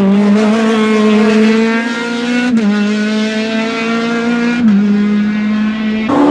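A four-cylinder Maxi kit car rally engine at high revs under hard acceleration, its note climbing slowly with quick gear shifts about two and a half and four and a half seconds in. Near the end the engine note jumps suddenly higher.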